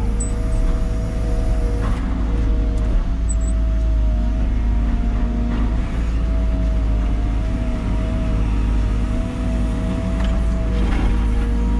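Liebherr 914 Compact wheeled excavator's diesel engine and hydraulics running under load from inside the cab as the boom swings and the bucket works dirt. A steady low rumble with a whine that wavers slightly in pitch.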